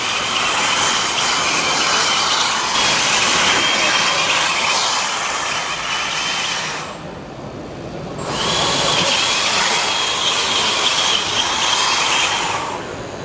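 Line-following robot running the course at speed, its small drive motors giving a loud, steady high whine over a hiss. The sound drops away for about a second around seven seconds in, then returns.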